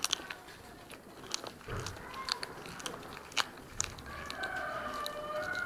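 A cat biting and chewing raw chicken feet, with sharp, irregular cracks as it crunches through the bones. A fainter background sound with a wavering pitch comes in during the last second or two.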